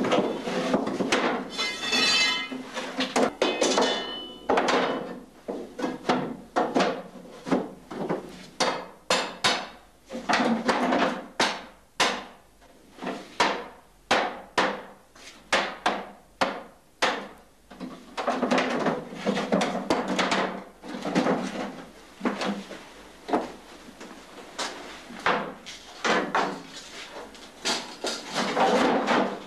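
A cooper hammering on a wooden barrel, driving the hoops down over the staves: a long series of sharp knocks, quickest and most regular in the middle, with a brief ringing tone about two seconds in.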